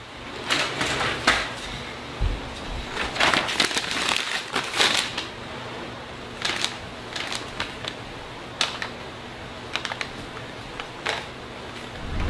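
Irregular clicks, light knocks and rustles of plastic pedestal fans being handled and moved, over a steady background hiss.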